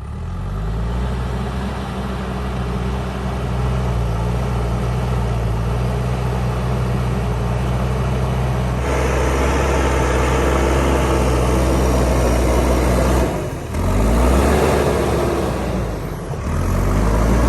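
JCB 3DX backhoe loader's diesel engine running hard under throttle. The revs climb just after the start, hold steady, then drop and climb back twice near the end.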